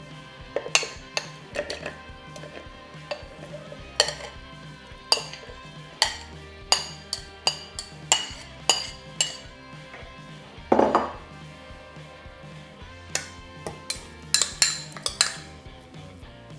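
Metal spoon clinking and scraping against bowls while scooping food into a mini chopper's bowl: a string of sharp clinks, with one louder knock about two-thirds of the way through, over steady background music.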